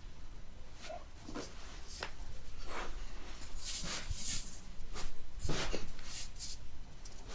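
Clothing rustling and breathy exhales at irregular intervals as a person lying on their side is twisted for a lower-back adjustment; no distinct crack stands out.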